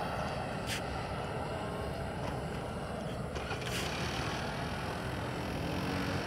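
NT-160 model jet turbine of a 1:5 scale J-10 RC jet in flight: a steady rushing noise with a faint thin whine.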